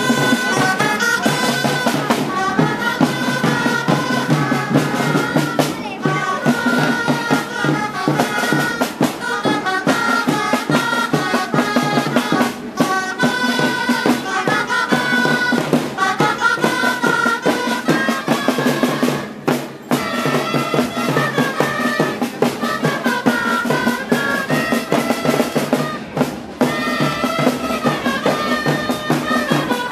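Street band of drums and woodwinds playing a lively melody over a steady drumbeat, the traditional music accompanying dancing festival giants.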